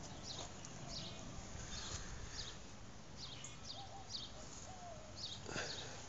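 Faint outdoor ambience with an animal chirping: short, high, falling chirps, two or three a second.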